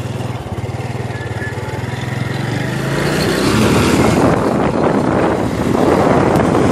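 A vehicle engine running with a steady low pulsing note, then wind buffeting the microphone grows loud from about three seconds in as the vehicle gets under way.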